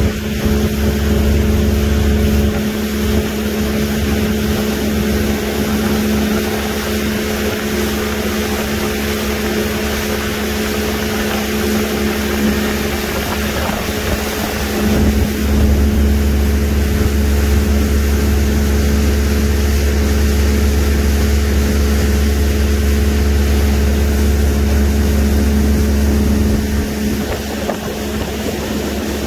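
Small fishing boat's engine running at a steady cruise while under way: a constant low rumble and hum under an even rushing hiss of wind and water.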